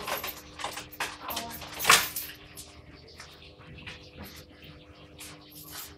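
A series of sharp clicks and knocks, the loudest about two seconds in, over a faint steady hum.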